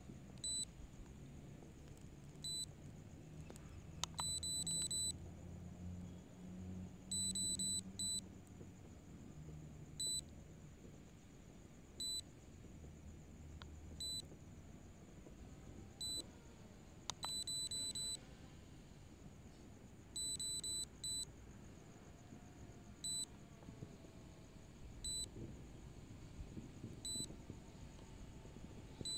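High electronic warning beeps from a drone's controller or app during automatic return-to-home: a single short beep about every two seconds, broken now and then by quick runs of three or four beeps.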